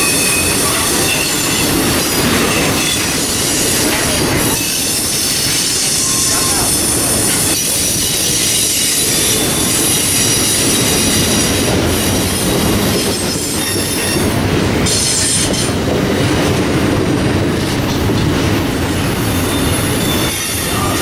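Double-stack intermodal container well cars of a freight train rolling past. Steel wheels on rail make a steady, loud rumble and clatter.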